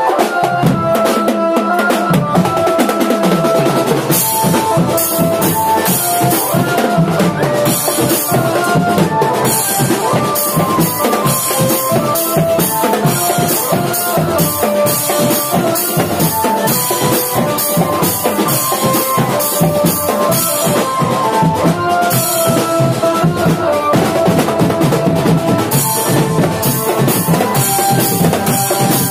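Marching drum band playing: bass and snare drums beating a fast, steady rhythm under a melody of held notes. The crisp snare hits grow denser about four seconds in.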